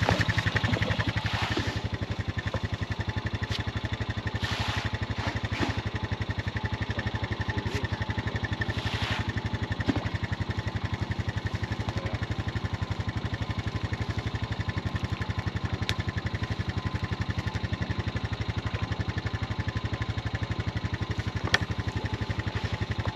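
A motor running steadily with a fast, even pulse that does not change in speed.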